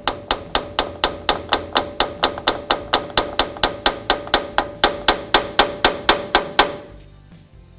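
Rapid, even tapping on a rusty brake caliper around a seized bleeder screw, about four to five strikes a second for nearly seven seconds, with a faint metallic ring under the strikes. The tapping is meant to break the rust free so the frozen bleeder screw will open.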